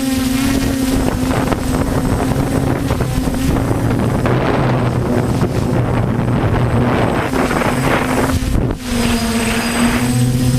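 DJI F450 quadcopter's electric motors and propellers humming steadily in flight, with gusty wind buffeting the microphone through the middle and a brief drop in the hum about three-quarters of the way through.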